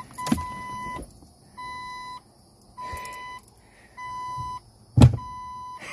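Jeep Cherokee XJ's dashboard warning chime beeping with the key in the ignition switched on: five even, steady beeps about one a second. A loud thump about five seconds in.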